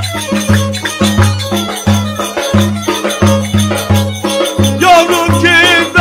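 Live Turkish köçek dance music: a violin bowed over a strummed cümbüş and a steady low pulsing beat about three times a second. Near the end a man's voice with a wavering vibrato comes in singing.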